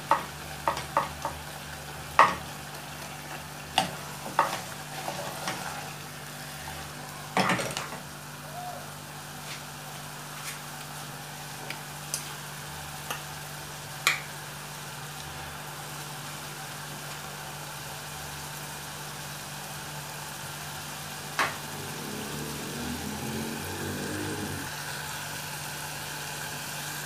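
Meat and tomato stew sizzling in a saucepan, with a wooden spoon stirring and knocking against the pan several times in the first eight seconds. After that the pan keeps sizzling steadily, with a few stray clicks.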